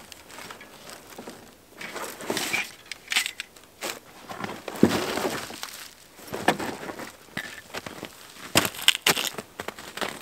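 Rustling, clunks and crunching as camping gear is pulled out of a backpack in a plastic sled, with footsteps crunching in crusted snow. The sounds come in irregular bursts, loudest about halfway and again near the end.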